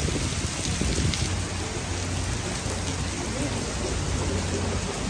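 Torrential rain pouring steadily: an even hiss with a low rumble underneath.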